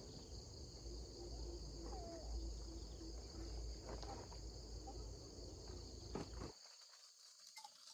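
Steady high-pitched chorus of insects, likely crickets, over a low rumble that cuts off suddenly about six and a half seconds in, with a few faint short chirps.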